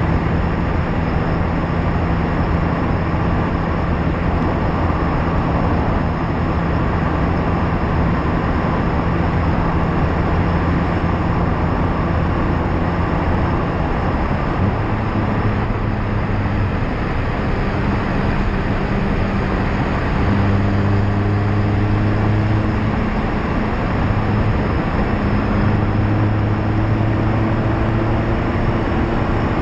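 Loud tyre roar from a Mazda MX-5 ND2 on the road, heard from a bumper-mounted camera, with the car's four-cylinder engine and exhaust note underneath. The engine note holds steady for about the first half, then comes and goes in stretches at a different pitch.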